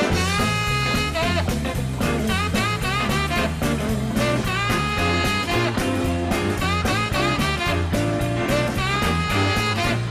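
Blues band playing an instrumental passage: a lead instrument plays bending melodic lines over a stepping bass line and steady drums, with no singing.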